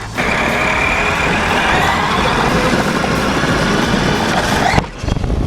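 Vehicle moving at speed: a steady rush of road and wind noise with a faint high whine through it, which starts and cuts off abruptly.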